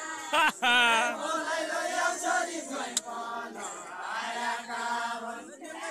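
Group of men singing a Deuda folk song together, chant-like with long held notes. A loud, wavering voice stands out about half a second in.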